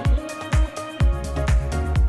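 Electronic background music with a steady kick-drum beat, about two beats a second, under sustained synth chords.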